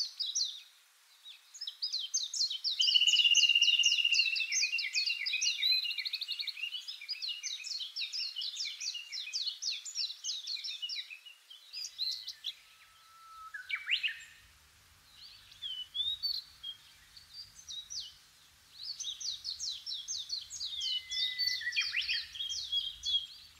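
Birds chirping: fast runs of short chirps and trills with a few whistled calls. A busy stretch early on and another near the end are separated by a sparser middle.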